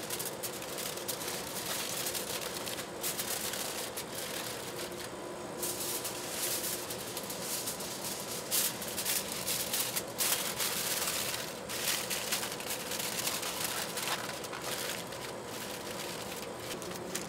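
Aluminium foil crinkling and crackling as hands crumple and press it around a thin metal flight tube, in quick irregular bursts, over a faint steady hum.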